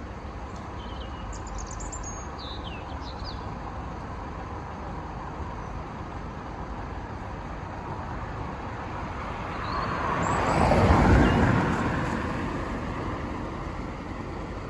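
A vehicle passes close by: its noise swells to a peak a little over ten seconds in and then fades, over a steady low traffic rumble.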